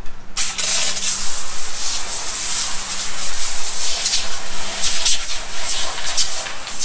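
Foam sprayer wand hissing as it lays wheel-cleaning foam onto a truck wheel and tyre, starting about a third of a second in and sputtering unevenly. A faint steady hum runs underneath.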